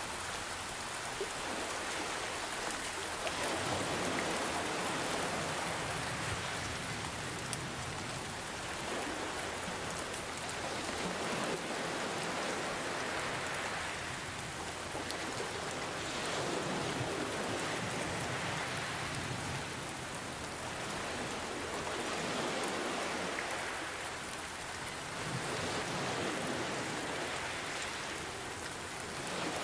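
Steady rain hiss mixed with ocean waves that swell and ebb every few seconds.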